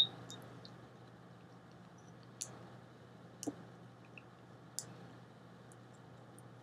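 A pen touching down and drawing on paper, heard as a few faint clicks: a sharper one at the very start, then single ticks about two and a half, three and a half and five seconds in. A low steady hum runs underneath.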